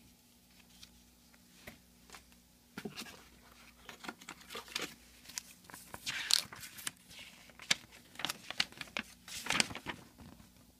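Packaging being handled and unpacked by hand: crinkling, tearing paper and plastic. A quiet start, then a dense run of short rustles and crackles from about three seconds in until near the end.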